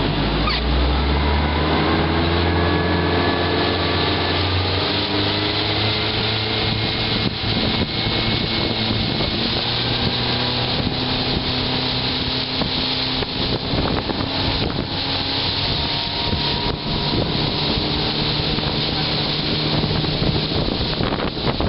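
Motorboat engine speeding up, its pitch climbing over the first few seconds and then holding steady at speed, with water rushing past the hull and wind buffeting the microphone.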